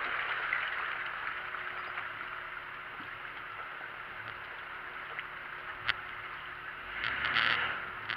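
4x4 crawling slowly over a rocky trail: a steady rush of engine and tyre noise with a faint low hum, a single sharp knock about six seconds in, and a louder surge of noise near the end.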